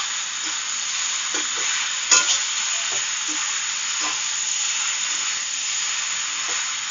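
Penne pasta sizzling as it is sautéed on high flame in a metal kadai, with a spatula stirring and tossing it. There is a sharp clink of the spatula against the pan about two seconds in, and a few lighter knocks.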